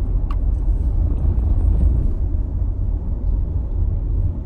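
Steady low rumble of a car being driven, heard from inside the cabin.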